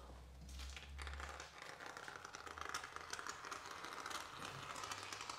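Expanding foam being dispensed from a foam gun along a door frame, a faint stream of small crackles and hiss. A dull low rumble comes in the first second and a half.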